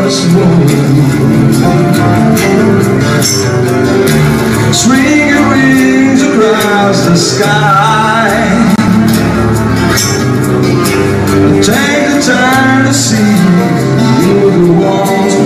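A live acoustic band plays: two acoustic guitars with a male vocalist singing over them, and small hand percussion ticking along.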